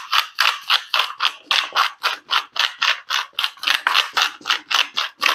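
Hand-twisted salt grinder grinding sea salt, a fast run of short ratcheting grinds at about four or five a second.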